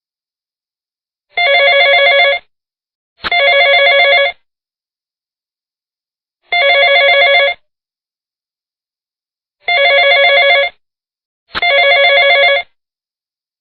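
Telephone ringing: five rings of about a second each, with uneven pauses between them. Each ring is a rapid warbling trill of several tones.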